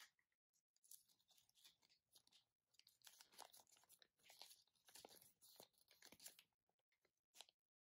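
Faint crinkling and rustling as a small folded paper instruction leaflet and a foil-like toy wrapper from a Kinder Surprise capsule are handled and unfolded, in irregular clusters of crackles.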